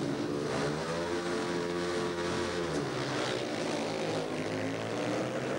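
A pack of four speedway bikes with 500cc single-cylinder methanol engines racing away from the start, several engine notes together. The pitch rises about half a second in as they pull away, holds, then drops about three seconds in as the throttles ease off.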